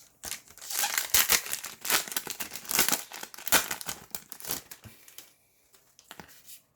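Foil wrapper of a Yu-Gi-Oh! booster pack crinkling and tearing open, a dense crackle for about five seconds that falls to a few faint ticks near the end.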